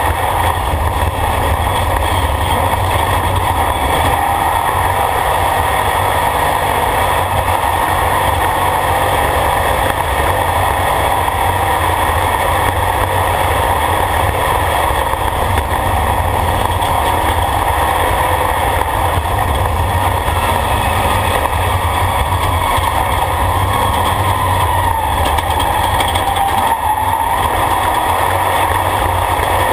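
Off-road race vehicle's engine running hard at speed, heard from inside the roll-caged cockpit as a loud, steady drone, its note wavering slightly near the end.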